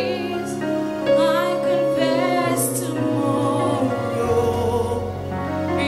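A woman singing a slow gospel worship song into a microphone, holding long wavering notes over sustained instrumental chords.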